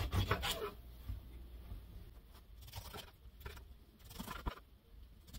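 Kitchen knife cutting through honeybell oranges on a wooden cutting board: a cluster of scrapes and taps at the start, then a few scattered knocks as the blade meets the board.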